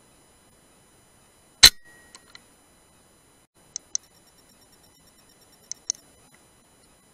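A single shot from a .177 Brocock Sniper HR pre-charged pneumatic air rifle: one sharp crack about one and a half seconds in, with a brief ring and two faint clicks just after it. Later come two pairs of light clicks, about two seconds apart.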